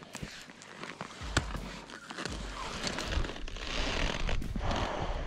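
Crunches and sharp clicks of a high-altitude climber's crampons and gear on steep ice, mixed with jacket rustle. A low buffeting rumble on the microphone sets in about a second in.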